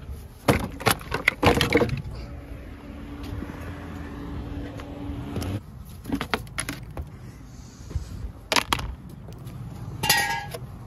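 Clicks, knocks and metal clanks of tools and parts being handled as a car battery is disconnected and removed, with a steady hum for about three seconds in the middle and a short ringing clank near the end.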